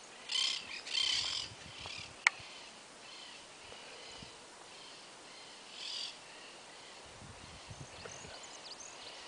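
Birds calling in short high-pitched bursts near the start and again about six seconds in, over faint repeated chirping, with one sharp click a little over two seconds in.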